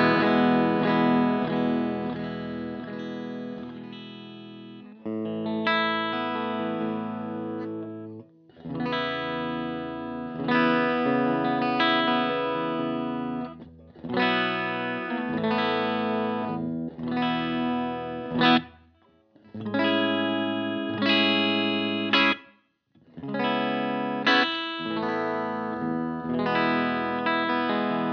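Electric guitar with a Lambertones Crema pickup in the bridge position, played through an effects pedalboard and amp. It plays phrases of picked chords and single notes that ring out, separated by brief breaks, with one sharp, loud strike a little past the middle.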